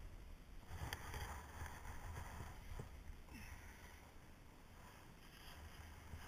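Skis turning on packed snow: faint swells of hissing scrape from the edges, one about a second in, another around three seconds in and another near the end, over a low wind rumble on the body-worn camera's microphone.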